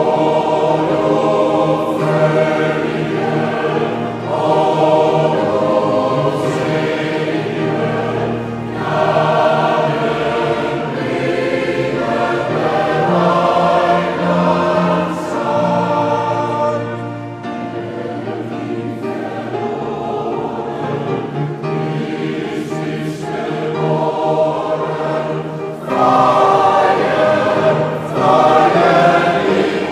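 Large mixed choir of men's and women's voices singing a sustained Christmas piece in a church, swelling louder near the end.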